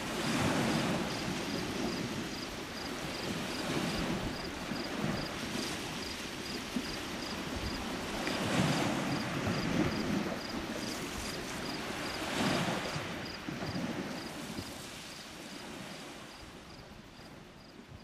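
Small Lake Huron waves washing onto the shore, one swell about every four seconds over a steady hiss of wind. The wash dies away near the end. A faint high ticking repeats about twice a second throughout.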